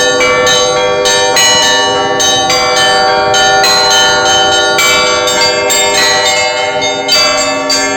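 Orthodox church bells being rung to call worshippers to the all-night vigil. Several bells of different pitch are struck about twice a second, each note ringing on over the others.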